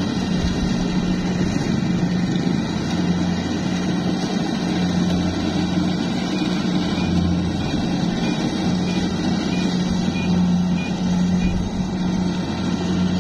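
Kubota DC70 Plus combine harvester's diesel engine running steadily under load, with the whir of the harvesting machinery.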